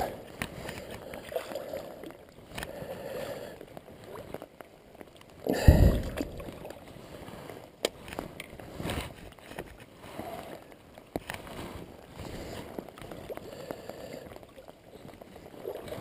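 Rain and water sloshing, with handling noise: a loud thump about five and a half seconds in and a few sharp clicks later on.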